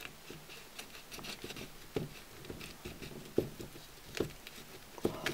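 Knife blade cutting through the top of an Echinopsis cactus stem: irregular soft clicks and scraping, with a few sharper ticks in the second half.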